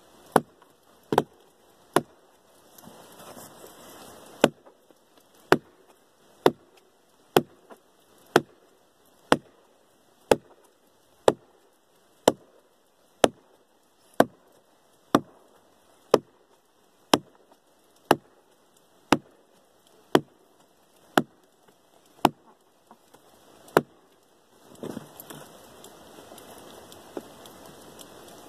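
An axe chopping down into the bark along the top of a poplar log, sharp regular strikes about once a second, splitting the bark so it can be peeled off. Near the end the strikes stop and there is a rustling crackle as the bark is pried loose with the axe.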